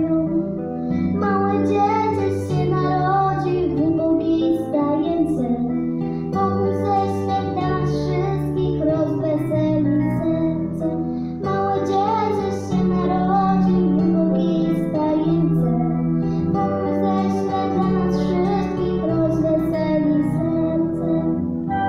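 A young girl singing into a microphone over an instrumental backing track with plucked strings, the voice amplified through the hall's speakers.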